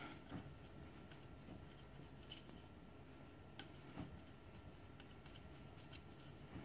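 Faint strokes of a small knife cutting rolled dough into strips on a floured granite countertop, with a few light clicks.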